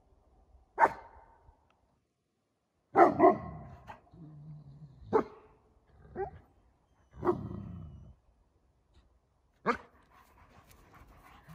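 Young Central Asian Shepherd (Alabai) dogs barking: about seven short single barks at uneven gaps, two in quick succession about three seconds in.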